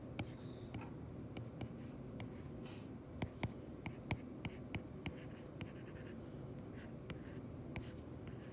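Stylus tapping and scratching on a tablet's glass screen while writing out numbers and units: a string of faint, irregular ticks.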